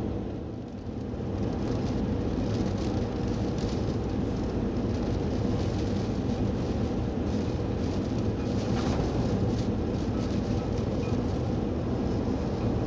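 Gale-force wind buffeting the camera microphone as a constant low rumble, with rough sea surging and spraying against a harbour wall. The rumble dips briefly just under a second in.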